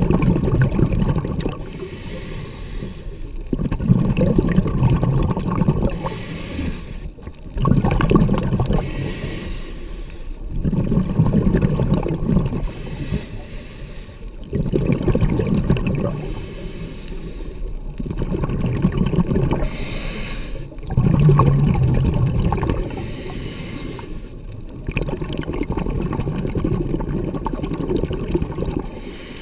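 Scuba diver breathing through a regulator underwater: a short hiss on each inhale, then a longer burst of bubbling rumble as the exhaled air leaves the regulator. A breath comes every four seconds or so.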